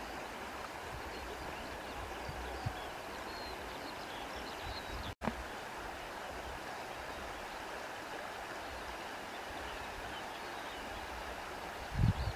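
Soft wind, a steady even rushing hiss, cutting out for an instant about five seconds in and swelling into a low rumbling gust near the end.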